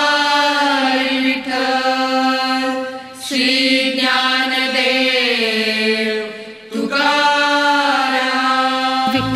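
Marathi Varkari devotional chant to Vitthal: a voice sings three long drawn-out phrases, each gliding up into a sustained held note. Tabla strokes come in just at the end.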